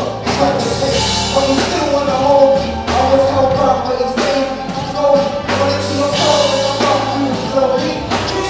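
Live gospel music with a steady drum beat, bass and singing.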